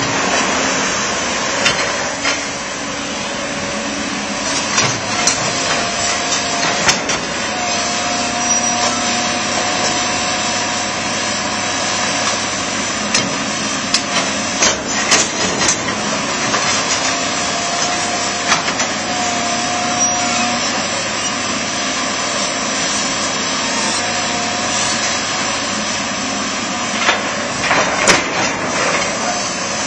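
John Deere backhoe loader's diesel engine running under load, with a whine that comes and goes and scattered sharp clanks and knocks as it digs and loads dirt.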